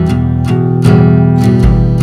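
Background music: a plucked-string melody over a steady beat.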